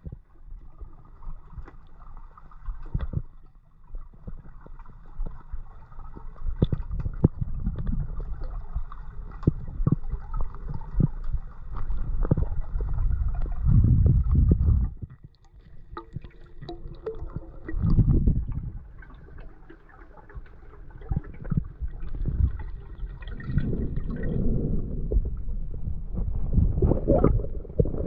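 Water gurgling and sloshing around a camera at the water's surface during snorkel spearfishing. It comes in low rumbling swells every few seconds, with small clicks between them.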